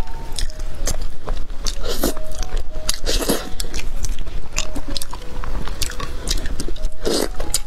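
Close-miked wet eating sounds: a person biting, chewing and sucking braised meat off the bone, with irregular sticky clicks and smacks and a longer slurp about three seconds in.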